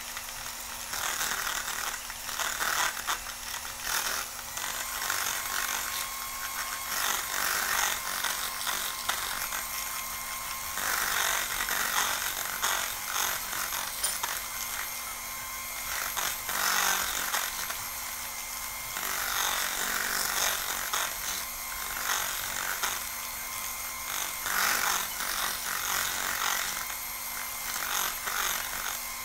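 Electric hand mixer running steadily, its beaters whipping sugar, Milo powder and hot water into a thick dalgona foam. Under the motor's steady whir, the churning of the beaters swells and fades as they move around the bowl.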